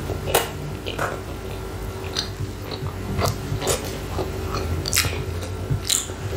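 Close-up mouth sounds of a chicken burger being bitten into and chewed: irregular wet smacks and clicks from the mouth and the soft bun and lettuce.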